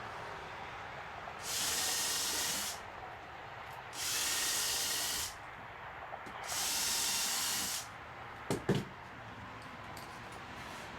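Three bursts of hissing, each a little over a second long and evenly spaced, followed by two quick knocks.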